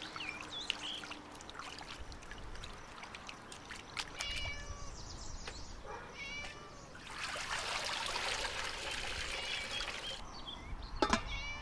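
Water poured in a stream into a metal basin for about three seconds, the loudest stretch, from about seven seconds in. A cat meows briefly about four, six and eleven seconds in.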